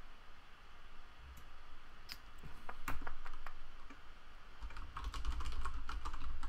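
Computer keyboard typing: a few scattered keystrokes, then a quicker run of keystrokes in the last two seconds.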